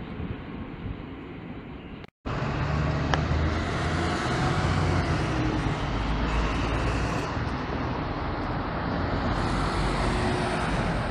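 Station platform noise with a train approaching, cut off abruptly about two seconds in. Then city street traffic: city buses, one of them articulated, drive past close by with a low engine rumble.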